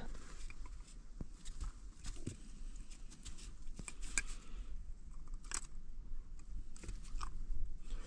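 Dog nosing, nibbling and pawing at a hard biscuit on fabric bedding: scattered small crunches and rustles, with the dog not really eating it, only playing with it.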